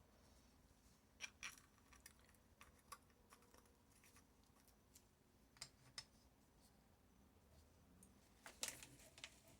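Faint, scattered clicks and taps of small hard craft items being handled, with a slightly louder little cluster of clicks near the end.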